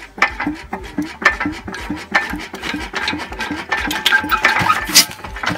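Imperial Super Diesel hit-and-miss stationary engine turning over, with a rhythmic chuff about four times a second and metallic clatter.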